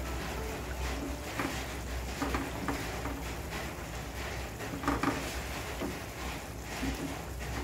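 Wooden spatula stirring a thick catfish curry in a pan, with soft wet scraping and a few short knocks against the pan, the sharpest about five seconds in. A low steady hum runs underneath.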